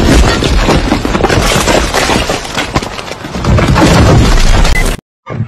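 An apartment building collapsing into a pit: a loud, continuous rumble and crash of falling masonry, heaviest near the end, then cutting off suddenly.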